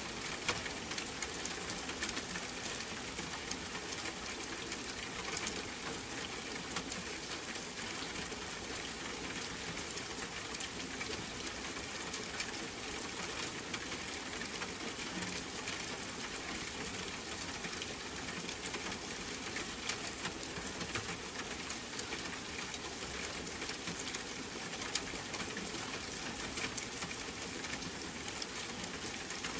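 Steady rain falling: an even, dense hiss of drops with scattered sharper drop ticks.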